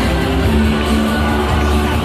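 Upbeat background music with held notes and a steady bass line over the show's loudspeakers, with faint crowd noise.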